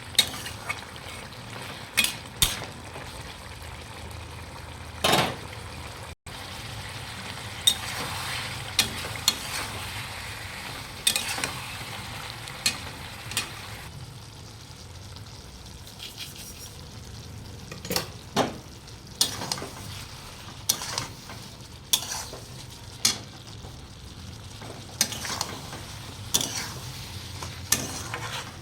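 Raw mango chutney cooking in a pan: a steady sizzle, with a spatula stirring and repeatedly scraping and knocking against the pan.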